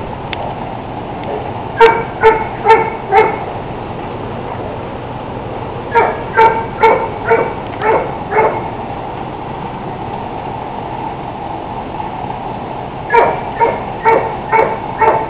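A dog barking in three runs of four to six barks, about half a second apart, with pauses of a few seconds between the runs, over steady background noise.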